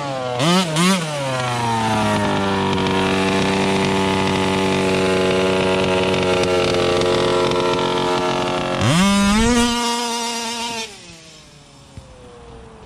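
The 46cc RCMAX two-stroke petrol engine of a 1/5-scale MCD XR5 rally car is blipped twice, then held at high revs with its pitch slowly sagging. Just before nine seconds in it revs up sharply, then falls to a much quieter run near the end.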